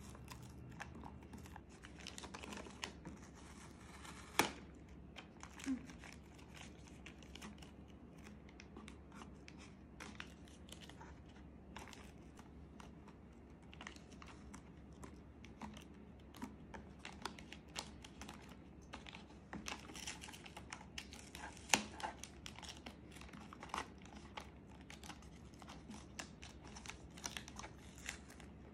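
Tape being torn, pressed and smoothed by hand around a plastic bottle's base on a plastic box lid: faint crinkling, scratching and rustling, with two sharper clicks, about four seconds in and near twenty-two seconds.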